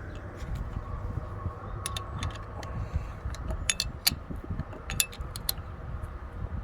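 Hand tools clicking and clinking sharply and irregularly against metal as a spark plug on the engine is threaded in and tightened down, over a steady low rumble.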